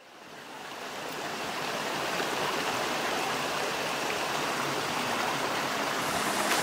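Steady rushing of flowing water, like a stream or cascade, fading up over the first second or two and then holding even.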